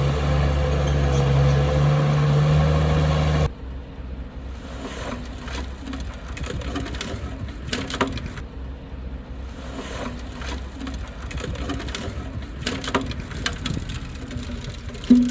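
Diesel engine of heavy earthmoving machinery running steadily, cut off abruptly about three and a half seconds in; after that, a much quieter stretch of scattered clicks and knocks, with a louder knock near the end.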